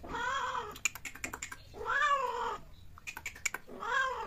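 A cat yowling during mating: three long drawn-out calls, each rising then falling in pitch, with sharp clicks in between.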